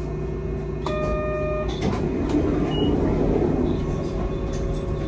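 Hankai Tramway streetcar running on street track: a steady motor hum with wheel-on-rail rumble that swells for a couple of seconds mid-way. A short beep sounds about a second in.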